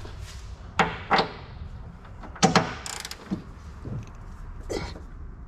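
Several separate sharp metallic knocks and clinks of hand tools and suspension parts being handled while bolts are tightened.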